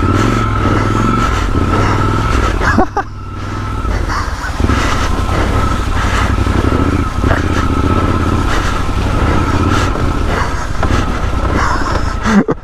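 Triumph Scrambler 1200 XE's parallel-twin engine running while riding slowly, dropping off briefly about three seconds in.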